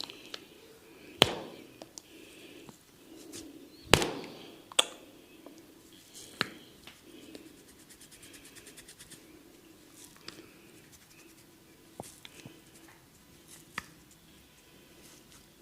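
A barber's hands working a head and neck massage: rubbing on skin and hair, broken by several sharp smacks, the loudest two about a second and four seconds in. A quick run of fine crackles comes near the middle.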